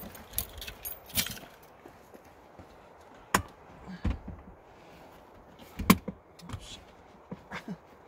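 Car keys jangling with scattered sharp clicks and knocks as someone gets out of a parked car, the loudest knock about six seconds in.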